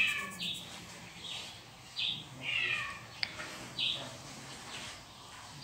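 Cat meowing: short high mews repeating less than a second apart, with a longer falling meow about two and a half seconds in. A single sharp click just after three seconds.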